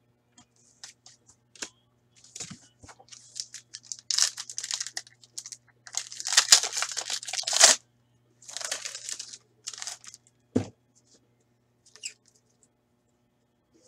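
Hockey card pack wrapper being torn open and crinkled by hand, in several uneven bursts that are loudest in the middle. A single dull thump comes about ten and a half seconds in.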